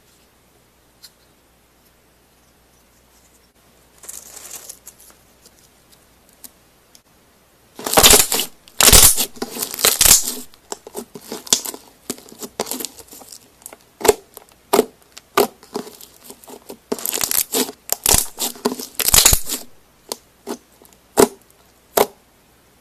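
Slime being squeezed and stretched by hand. It starts quiet with a brief soft rustle, then about a third of the way in come loud clusters of crackling and popping, with short pauses between them.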